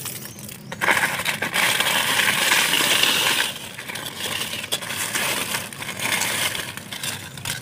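Dry fallen leaves rustling and crackling as they are pushed aside by hand and with a stick that scrapes through loose soil, most intense for a couple of seconds about a second in, then lighter crackles and clicks.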